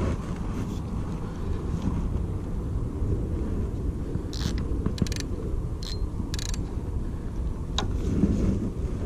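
Wind buffeting the microphone, with a few short sharp clicks from the spinning reel about halfway through as the line is taken up after a cast.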